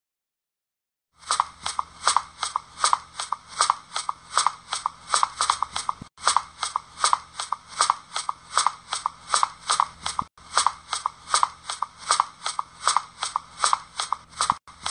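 A steady, evenly spaced run of sharp clicks or knocks, about three a second, starting about a second in and broken by three very short dropouts.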